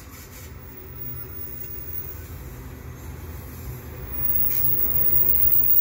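CN double-stack container train's well cars rolling past on the rails: a steady low rumble of wheels on track that grows louder toward the end.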